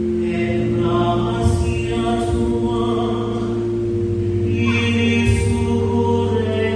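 A slow sung hymn over held electronic keyboard chords, with the chord changing about two-thirds of the way through.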